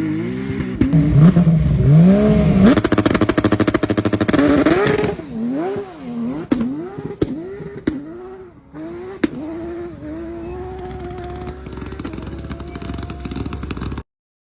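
Porsche flat-six engine being revved in repeated quick blips, loud at first, then lighter blips with a few sharp cracks in between. It settles to a steady idle, and the sound cuts off suddenly near the end.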